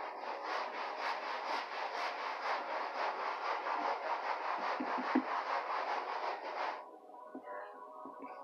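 Hand sanding of wood boards with sandpaper, smoothing dried wood putty, in quick back-and-forth strokes of about three or four a second. The rubbing stops suddenly about seven seconds in.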